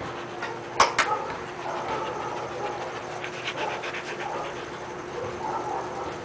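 Siberian huskies panting, with two sharp knocks close together about a second in.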